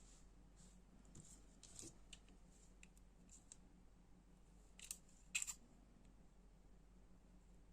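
Quiet small clicks and taps of a folding knife's metal parts and tools being handled during disassembly, with two sharper clicks about half a second apart around five seconds in.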